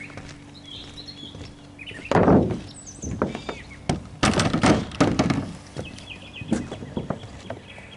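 Knocks and thuds from roofing work on a mobile home: a loud clatter about two seconds in, a run of knocks around the middle, then a few lighter taps.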